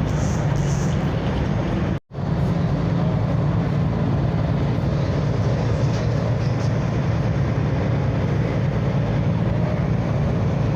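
Car ferry underway: a steady low engine drone mixed with wind and water noise, cut off for an instant about two seconds in.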